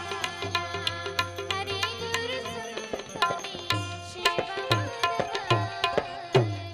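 Keyed Indian banjo (bulbul tarang) playing a fast plucked melody with tabla accompaniment, the bass drum giving deep strokes that bend down in pitch. The passage closes on one loud, deep tabla stroke near the end.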